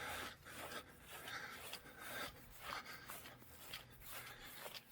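Faint footsteps and rustling of brush on a woodland trail, irregular scuffs and swishes.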